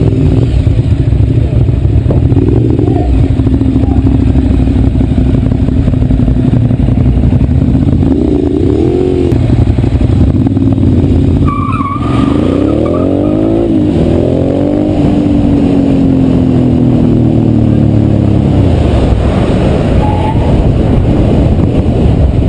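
Motorcycle engine running under heavy wind rush on the rider's microphone, its revs rising in a sweep about eight seconds in and again in several rising sweeps from about twelve seconds in as it accelerates away.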